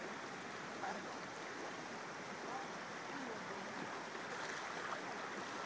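Shallow river flowing over a stony bed: a steady, even rush of running water.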